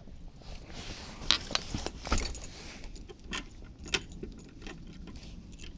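Short bursts of light metallic jingling and clicking, loudest about one and a half and two seconds in, with a few single clicks later.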